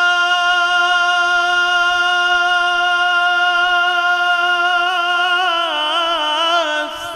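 A male naat reciter singing, holding one long steady note and then, about five seconds in, breaking into a wavering, ornamented run.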